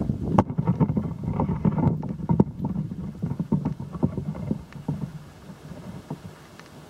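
Low rumbling with irregular knocks and rustles from the camera being handled and moved, with some wind on the microphone, dying down after about five seconds.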